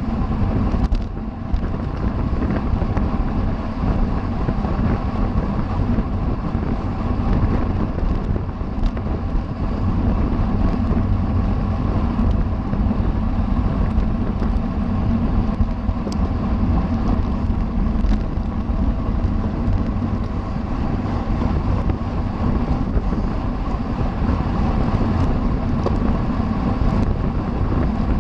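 Steady wind rushing over the microphone of a camera riding along on a racing bicycle, a loud continuous rumble.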